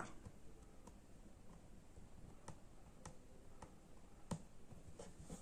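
Near silence with about eight faint, irregular clicks from an embroidery needle being worked through fabric stretched in a hoop. The clearest click comes a little after four seconds in.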